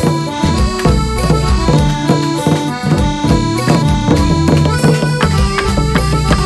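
Traditional Khmer festival music: a reedy, held melody over a steady, quick drumbeat.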